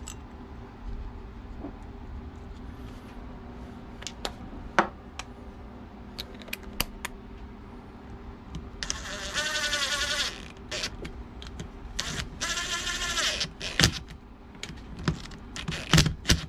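Scattered metallic clinks of tools and bolts, with two spells of about a second and a half each of a whirring power tool running in the A/C compressor's mounting bolts.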